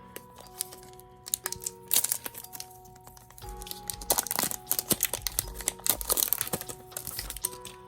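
Foil booster-pack wrapper crinkling and tearing as a trading card pack is opened, with bursts of sharp crackling about two seconds in and again from about four to six and a half seconds in. Soft background music plays under it.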